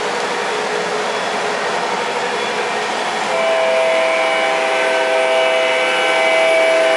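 Model trains rolling on three-rail track with a steady rumble. About three seconds in, an MTH model diesel's sound system starts a multi-note horn chord, which holds steady to the end.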